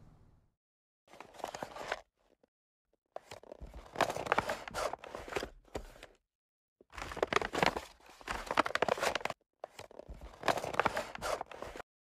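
Rustling, crunching and plastic clicking as a canister vacuum cleaner and its ribbed plastic hose are handled on dry grass, in four separate bursts that stop dead between them.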